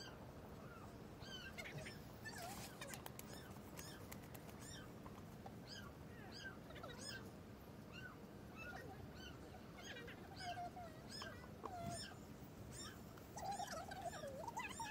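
A cat stuck under a footbridge mewing over and over in distress: short high cries about once a second, with a longer, lower wavering meow about ten seconds in and again near the end. Faint.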